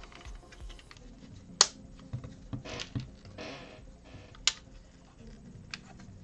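Plastic building bricks being handled and pressed together: two sharp clicks, one about a second and a half in and one about four and a half seconds in, with lighter clicks and short rustles of loose pieces between them.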